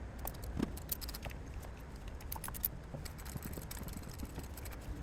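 Scattered light clicks and taps of hand tools and small metal parts being handled, over a low steady rumble.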